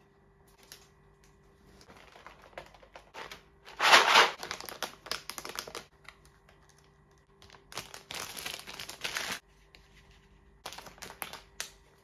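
Grocery packaging handled up close: a cardboard box, plastic tubs and a soft plastic wet-wipes pack rustling, crinkling and clacking in the hands. It comes in three spells, loudest about four seconds in.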